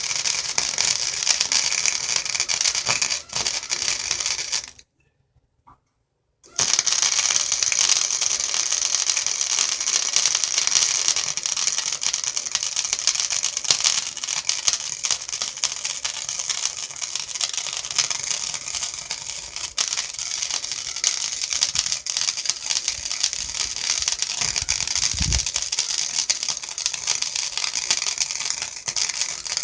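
Electric arc welding: the dense, steady crackle of the arc laying a bead. It stops for a second or two about five seconds in, then starts again and runs as one long continuous bead.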